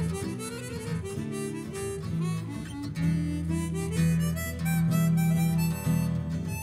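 Harmonica solo over strummed acoustic guitars, with a few bent notes early on and long held notes in the second half.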